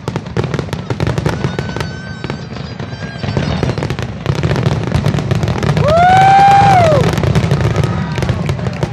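Aerial fireworks finale: a dense, rapid run of shell bursts over a constant low rumble. About six seconds in, a spectator gives one long whooping cheer over the bangs.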